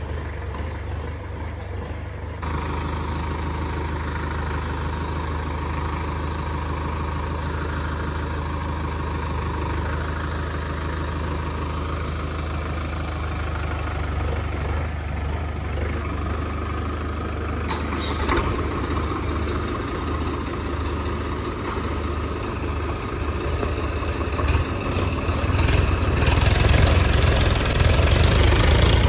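Diesel tractor engines running as a Sonalika tractor pulls on a tow rope to free a Swaraj 855 stuck in deep paddy-field mud. The engines run steadily, then get louder and harder-working from about 25 seconds in as the pull is put on; the stuck tractor does not come free.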